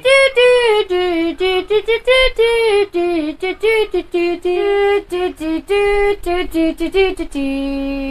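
A fast, high melody of short pitched notes, with one longer held note near the end.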